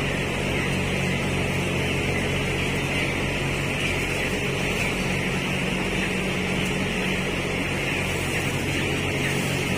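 Steady drone of a closed broiler house: a low machine hum like ventilation fans, under the constant massed peeping of a large flock of twelve-day-old broiler chicks.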